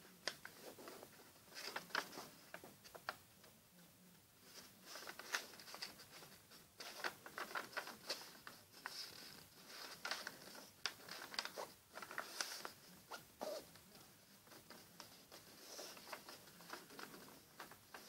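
A sheet of paper being handled and folded: faint, irregular rustling and crinkling with short crackles as it is creased and lifted.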